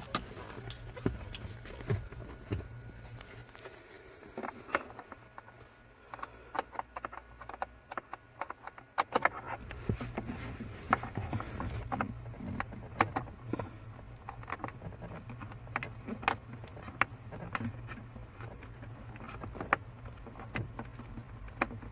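Scattered light clicks and taps of small parts being handled during work on the servo. Under them runs a steady low hum that drops away about four seconds in and comes back about nine seconds in.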